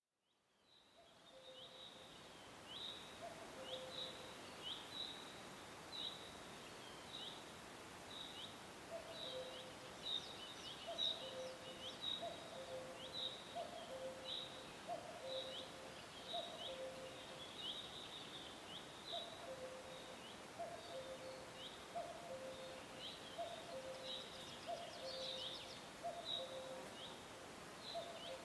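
Forest ambience: birds calling over a steady hiss, with short high falling chirps repeating about once a second and a lower two-note call repeated under them. It fades in over the first second or two.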